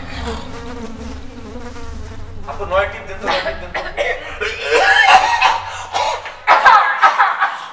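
A fly-like buzzing, with bursts of people's voices making non-word sounds that grow louder in the second half.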